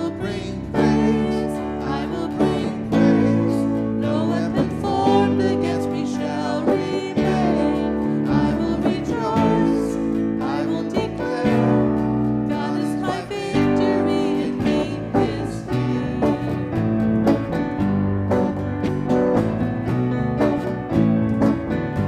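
Live worship band playing a song on acoustic guitar, electric guitar, bass guitar and Kawai digital piano, with singing.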